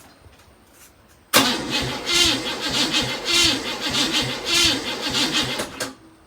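Holden 253 V8 being cranked over by its starter motor for about four and a half seconds with a rapid rhythmic pulsing, without firing, then cutting off suddenly. The engine has not run in over 25 years.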